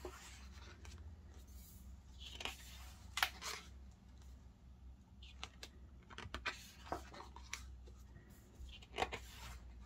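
Pages of a large photo book being turned and handled: scattered soft paper swishes and light taps.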